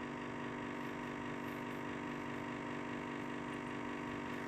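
Steady mechanical hum of a running motor, even in pitch and level throughout.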